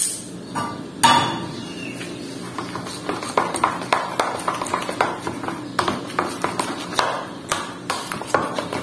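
A metal utensil clicking and scraping against a plastic bowl as tapioca flour and egg are stirred into a batter, in rapid irregular taps from about two seconds in. A sudden rushing noise comes about a second in and fades.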